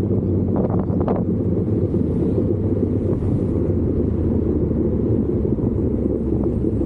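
Wind buffeting the microphone over the steady low drone of a moving vehicle's engine, with a few brief rustles about a second in.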